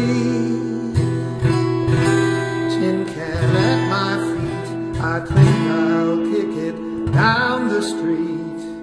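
Music: an instrumental passage of a slow song between sung lines, led by guitar.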